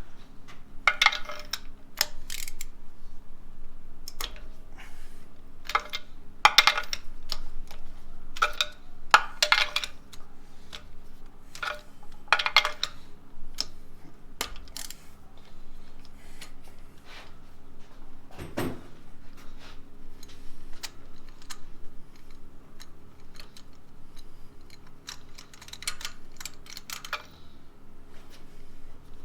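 Small metal parts and tools clinking and rattling in short bursts, with one duller knock about two-thirds of the way through, over a faint steady hum.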